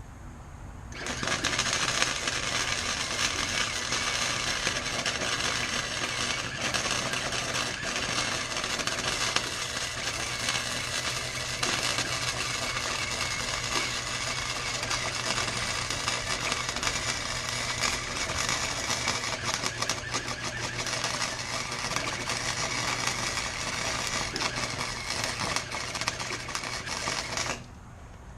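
Harbor Freight welder laying a continuous weld bead, the arc crackling steadily for about 26 seconds with a steady hum underneath; it starts about a second in and cuts off shortly before the end.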